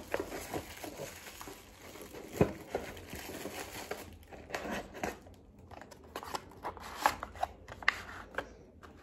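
Jewelry being handled and rummaged through in a small box: irregular light clicks, taps and rustles, with a sharper click about two and a half seconds in and another about seven seconds in.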